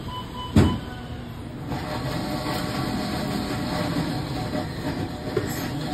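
Steady background noise of a busy deli counter, with one sharp knock about half a second in. The noise grows denser and fuller from about two seconds on.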